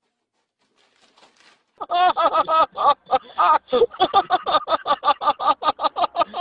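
A person laughing hard in rapid, regular bursts of about four or five a second, starting about two seconds in.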